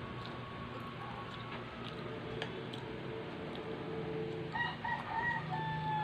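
A bird call in the last second and a half: a few short broken notes, then one long held note that falls slightly.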